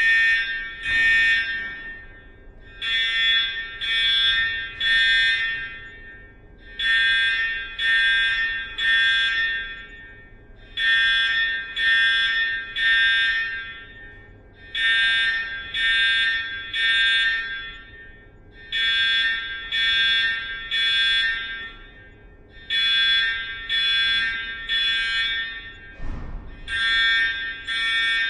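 School fire alarm sounding the temporal-three evacuation pattern: three short tones in a row, then a pause of about a second and a half, the group repeating about every four seconds.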